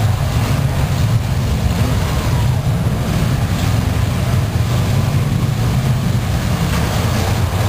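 Several demolition derby cars' engines running together, a loud, steady low rumble.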